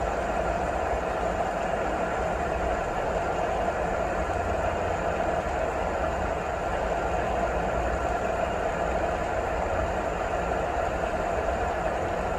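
Steady rain noise: an even, unbroken hiss with a low rumble underneath.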